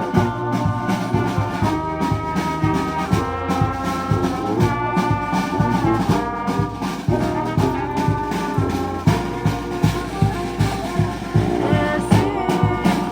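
Background music with a steady beat and brass-like held notes.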